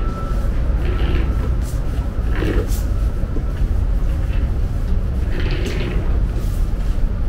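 City street traffic: a steady deep rumble of passing vehicles, with a thin steady tone that stops about halfway through and scattered short higher sounds over it.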